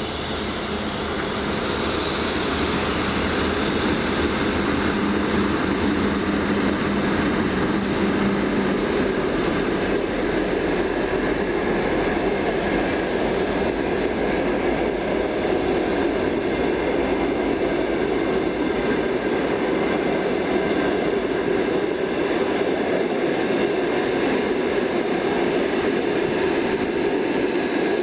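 A TEP70 diesel locomotive passing at the head of a long passenger train, its engine tone fading after about nine seconds, then the coaches rolling by with a steady noise of wheels on the rails.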